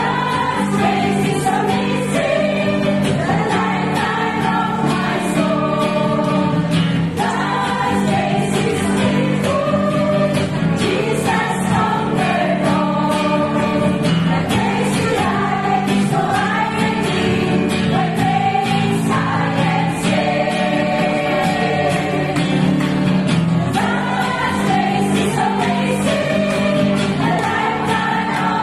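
Women's choir singing a Christian thanksgiving song together, several voices moving from note to note.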